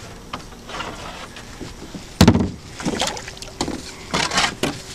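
Paddle knocks against a plastic kayak hull, mixed with splashes of water. The loudest knock comes a little over two seconds in, and smaller knocks and splashes follow.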